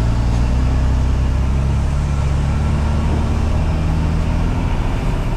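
Grain truck's diesel engine running steadily on the road, a continuous low drone.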